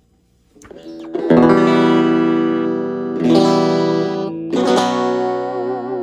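Electric guitar with single-coil pickups, a Stratocaster, played with a clean tone through a Lekato Unique battery-powered mini amp: three strummed chords about a second in, then about two and three and a half seconds later, each left ringing, the last one wavering in pitch.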